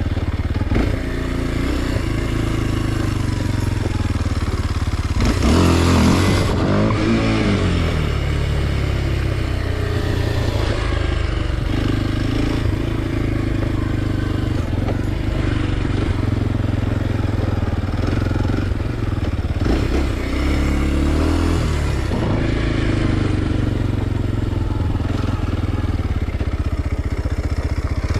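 2023 Kawasaki KLX 230 SM's single-cylinder four-stroke engine running under way, the revs rising and falling with the throttle. There is a hard rev-up and drop about five to seven seconds in, and another smaller one about twenty seconds in.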